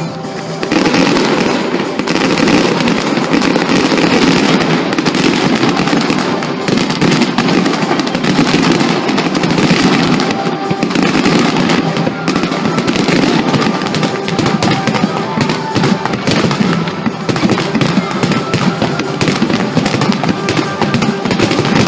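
Fireworks display: a dense, unbroken run of bangs and crackling that swells sharply about a second in, with music playing underneath.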